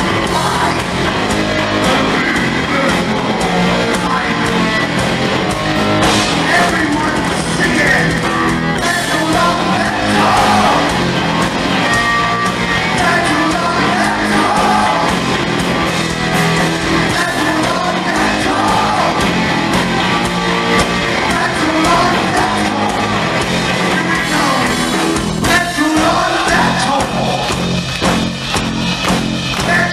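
Heavy metal band playing live, with electric guitar, bass and drums under a sung lead vocal, recorded from within a club crowd.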